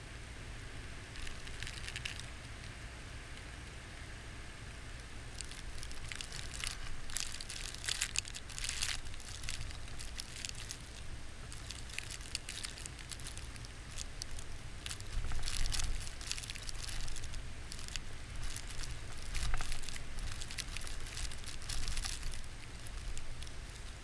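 Blizzard wind rumbling low on the microphone, with gusts of wind-driven snow crackling and pattering against the camera in irregular spells, heaviest in the middle and near the end.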